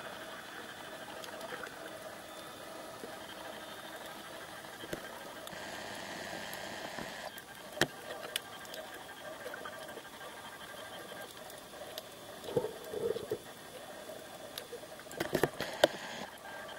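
Underwater sound over a coral reef, picked up by a camera in a housing: a steady hiss with a faint steady hum. Scattered sharp clicks come near the middle, and a quick run of clicks and crackles comes near the end.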